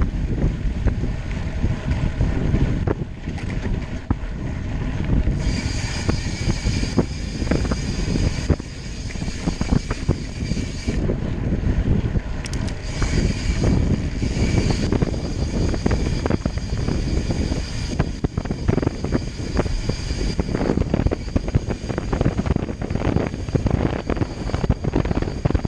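Wind buffeting the microphone over the low rumble of a moving vehicle, gusting unevenly throughout. From about five seconds in to about fifteen seconds in, a steady high whine with several tones sits on top of it.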